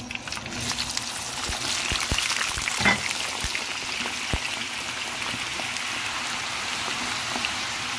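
Hot oil sizzling and crackling steadily as potato pieces deep-fry in a pan, with a few soft knocks in the first half.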